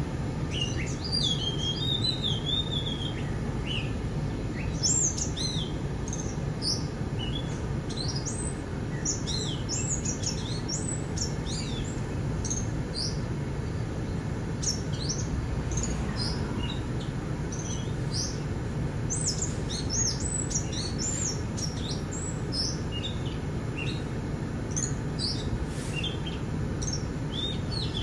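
Several small birds chirping, many short high calls bending up and down and scattered all through, over a steady low rumble.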